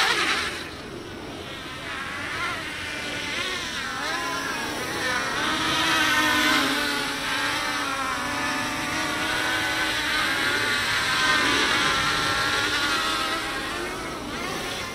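Mini quadcopter's DYS 3100 kV brushless motors and propellers whining. A loud full-throttle punch-out rises and peaks right at the start, then the motors buzz at lower throttle with a constantly wavering pitch, fading near the end as the quad comes down.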